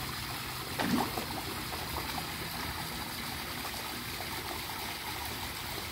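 Steady splashing and trickling of water pouring into a fish pond from the return outlet of a recirculating (RAS) filter system, with one brief louder sound about a second in.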